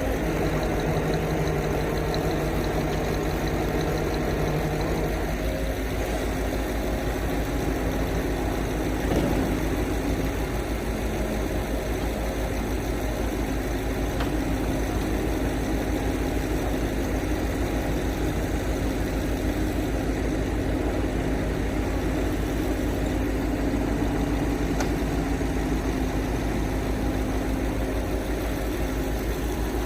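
Crane truck's engine idling steadily, with a low, even pulsing and a humming tone that changes pitch about five seconds in.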